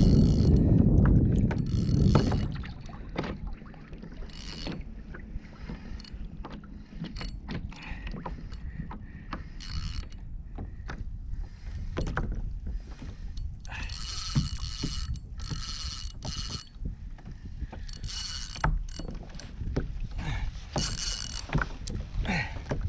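Spinning fishing reel working under the load of a hooked snapper: several short mechanical whirring bursts of about a second each in the second half, among scattered clicks and knocks. A loud low rush fills the first two seconds or so.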